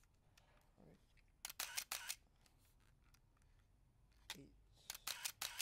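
Canon EOS 3 SLR firing twice, about three seconds apart. Each release is a quick cluster of clicks from the mirror and shutter, fired at slow shutter speeds during a test of the shutter across its speeds.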